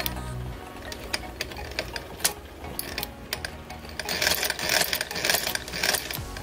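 A Union Lock Stitch leather sewing machine stitching through thick layered bridle leather: irregular mechanical clicks and knocks of the needle and stitch mechanism, getting louder and busier about four seconds in.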